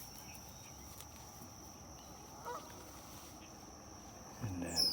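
Goose honks: one short call about two and a half seconds in and a louder call near the end, over a steady high insect trill, with a quick high bird chirp at the very end.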